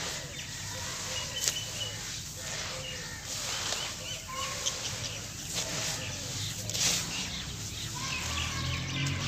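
Hands scooping and crumbling gritty sand-cement mixture, a repeated crunching and rustling of grains and clumps. Faint bird chirps sound now and then behind it.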